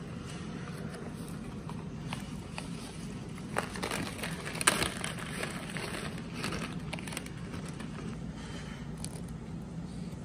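Paper and cardboard rustling and crinkling as crinkle-cut fries are tipped from their cardboard box onto a paper plate and a paper-wrapped burger is handled, with scattered crackles, the sharpest a little before halfway. A steady low hum runs underneath.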